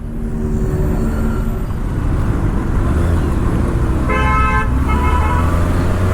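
Kawasaki ZX-6R's 636 cc inline-four running in city traffic, getting louder over the first couple of seconds. A vehicle horn honks for about a second, about four seconds in.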